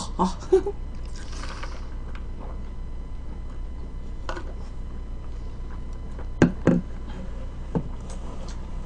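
Soft eating and drinking sounds: a brief sucking hiss of a sip through a straw and a few small mouth clicks and smacks while chewing, over a low steady hum.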